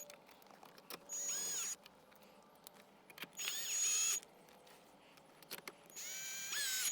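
Power drill driving screws in three short runs, its motor whining up and down in pitch with each run.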